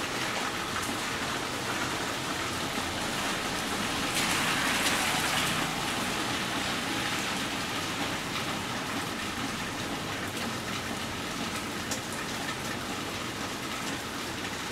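Steady rain falling on a wet street and porch, an even hiss with scattered drips. A louder hiss swells for about two seconds around four seconds in.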